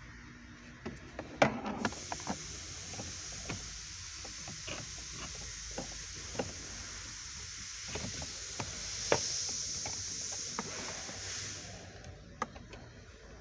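Plastic interior trim strip of a Toyota C-HR being handled and pressed into its clips: scattered clicks and knocks, the sharpest about a second and a half in, around nine seconds in, and near the end.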